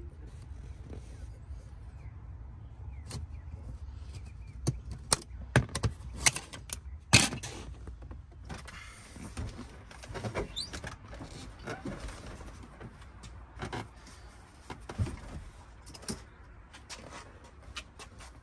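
A passenger seat being unfastened and lifted out of a car: a quick run of sharp clicks and knocks about five to seven seconds in, then scattered lighter clunks and rustling as the seat is tipped and pulled out.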